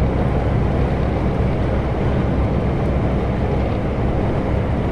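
Steady engine drone and road noise inside the cab of an Iveco EuroStar truck driving along the highway, a low, even hum with no change in pitch.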